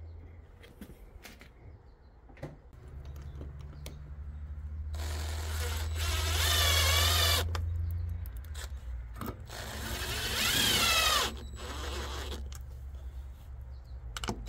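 Cordless drill/driver running in two spurts of about two seconds each, driving screws to strap a black-iron gas pipe to the wall, the motor whine wavering in pitch as each screw bites.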